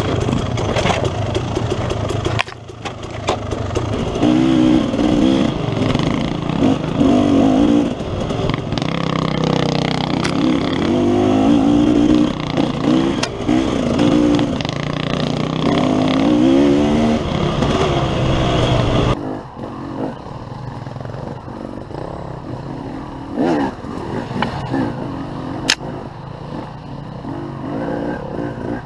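KTM enduro dirt bike engine revving up and down repeatedly while riding a rough trail, with occasional sharp knocks. The sound changes abruptly at about two and a half seconds, and again at about nineteen seconds, where it turns quieter.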